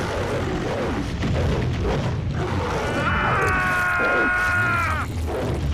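Cartoon action soundtrack: a steady low rumble of score under crashes and thuds as mutant dogs attack. About three seconds in comes a held high cry lasting about two seconds.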